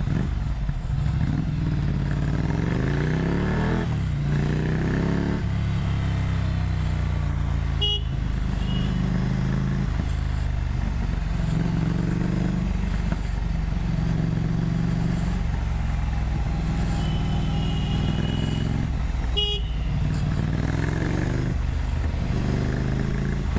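Ducati Monster 797's 803cc two-cylinder engine through a Termignoni exhaust, revving up several times as it pulls away and shifts, then running on at steadier revs. Brief vehicle horns honk about eight seconds in and again near the end.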